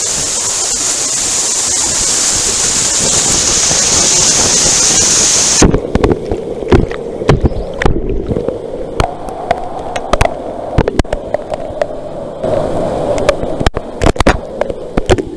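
Waterfall pouring into a plunge pool, a steady loud rush of water. About five and a half seconds in, the sound suddenly turns muffled, heard from under the water, with irregular knocks and gurgles.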